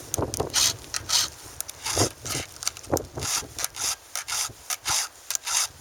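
Hand file rasping across the cutting teeth of a chainsaw chain in short repeated strokes, about two to three a second.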